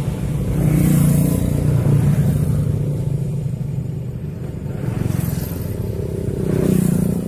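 Road traffic passing close by: a steady engine rumble with several vehicles swelling past one after another, about a second in, around five seconds and near the end.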